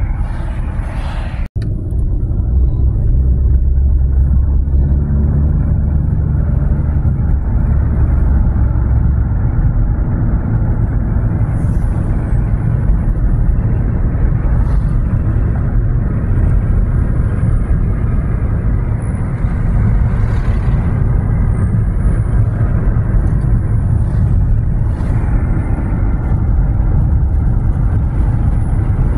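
Steady low rumble of a car driving along a road, engine and tyre noise heard from inside the moving car. The sound cuts out for an instant about a second and a half in.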